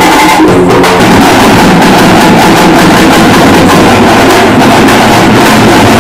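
Very loud drumming from a procession's band of large hand-carried drums, dense and continuous.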